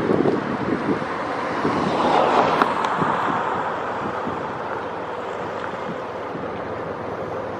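Wind buffeting the microphone, over a broad rush of noise that swells about two seconds in and then slowly fades.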